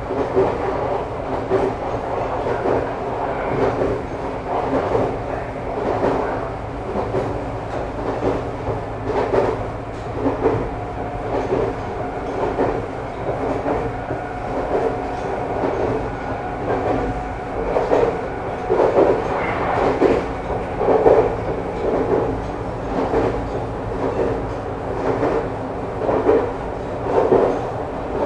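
Nagano Electric Railway 2100 series 'Snow Monkey' electric train (the former JR 253 series) running, heard from inside the passenger car: a steady rumble with the wheels clacking over rail joints again and again.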